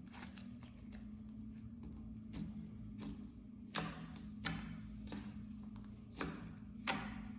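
Clear slime being pressed and stretched by hand, making sticky clicking pops. Four sharp pops stand out in the second half, over a low steady hum.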